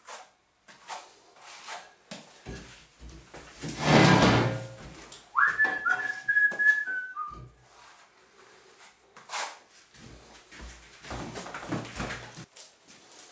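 A person whistling a short phrase of a few held notes that step down in pitch, amid scraping and knocking from a hand-held texturing comb worked through wet Artex. A louder rustling thud comes about four seconds in.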